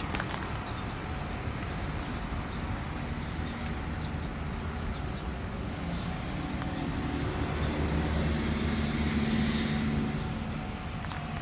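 A motor vehicle passing by: a low engine hum over steady background noise, swelling from about six seconds in, loudest around nine seconds, then fading.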